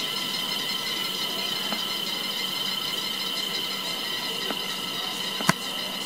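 Cicadas singing in a steady, unbroken, high-pitched drone. A single sharp click comes near the end.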